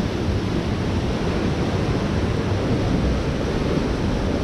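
Steady rush of water pouring through the open gates of a river dam, with all three gates open after rain.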